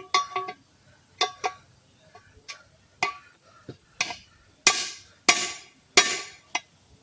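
A metal tool knocking and prying at a truck wheel rim to get off an old wheel balance weight. Sharp ringing knocks come in the first few seconds, then three longer scraping strokes in the second half, with one more knock near the end.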